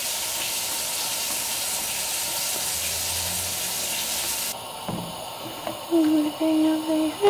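Egg mixture for an omelette sizzling steadily in a non-stick frying pan, cutting off suddenly about four and a half seconds in. Near the end a voice hums a tune.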